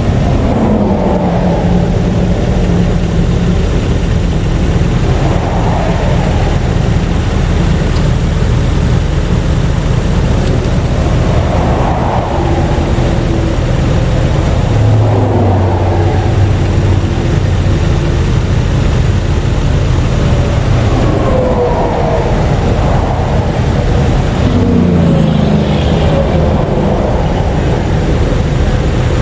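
Interstate traffic passing close by, loud and continuous, with engine tones that fall in pitch as vehicles go past, several times, over a steady low engine hum.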